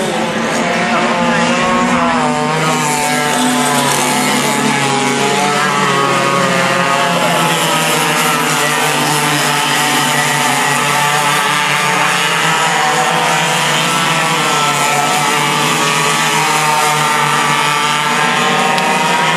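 Several racing kart engines running together, revving with the pitch of each rising and falling over and over as the karts accelerate and slow.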